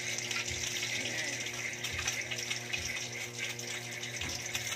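Breaded chicken frying in hot oil in a pan, a steady sizzle with small crackles and pops.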